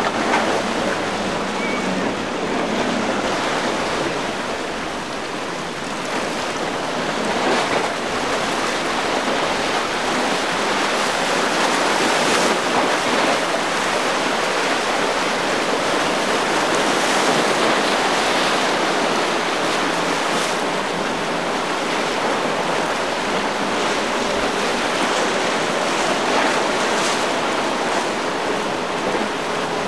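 Waves and surf rushing steadily, with wind noise on the microphone. A faint outboard motor hum comes in near the end.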